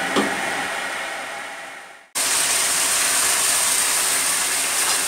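A steady hiss with a single knock just after the start, fading out about two seconds in. It then cuts back in as the louder, steady sizzle of fish pieces frying in hot oil in a wok.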